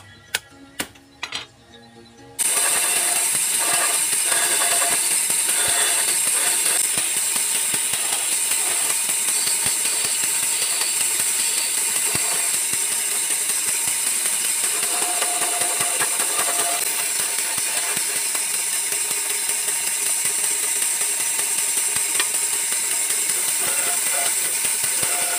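A few sharp chopping knocks of a blade on carabao horn against a wooden block. Then, from about two seconds in, a wood band saw runs steadily and loudly as it cuts through the horn.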